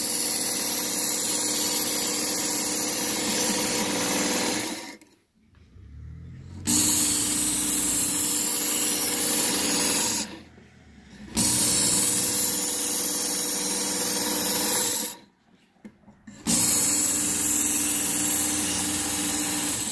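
Work Sharp Ken Onion Edition belt sharpener running with a knife blade held to its coarse belt, grinding a new edge. It runs in four stretches of about four to five seconds, stopping briefly between them, one stretch for each pass of the blade.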